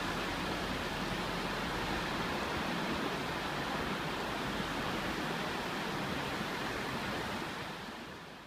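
Steady wash of small surf breaking on a sandy beach, fading out near the end.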